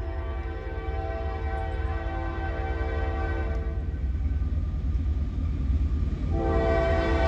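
Approaching freight locomotive sounding its multi-chime air horn: one long blast that fades out about four seconds in, then a second, louder blast starting near the end, over a steady low rumble.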